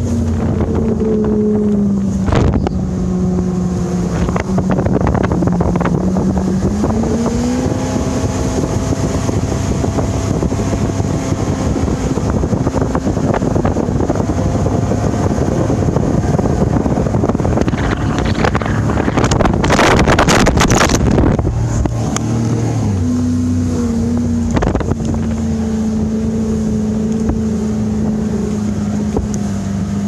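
Outboard motor of a bass boat running under way, its pitch dropping and rising several times with the throttle. Heavy wind noise buffets the microphone throughout, loudest for a few seconds about two-thirds of the way through.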